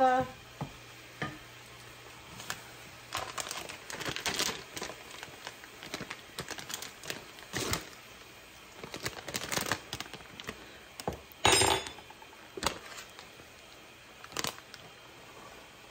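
Scattered kitchen handling noises: a wooden spoon scraping and stirring ground beef in a skillet, then a plastic bag of shredded mozzarella crinkling as it is opened and handled, with one louder crinkle about two thirds of the way in.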